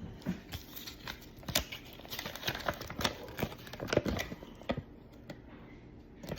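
Irregular small clicks and light rustling as a plastic toy doll is handled and dressed.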